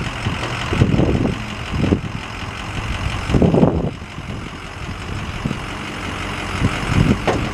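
Ford 6.0-litre V8 diesel idling steadily while the tow truck's hydraulic wheel lift is run out and lowered. Several louder knocks from the moving lift come through, the biggest about three and a half seconds in.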